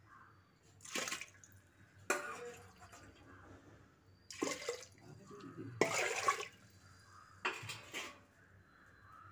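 Water splashing and sloshing in a pressure cooker pot, in about five short bursts, as chopped shallots and garlic are added to soaked rice and water.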